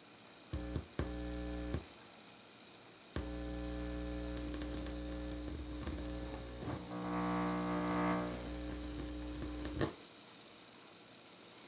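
Stereo speakers giving out a 60 Hz mains hum and buzz. It cuts in briefly twice in the first two seconds, comes back about three seconds in and holds steady, with a harsher buzz swelling near the middle, then cuts off suddenly.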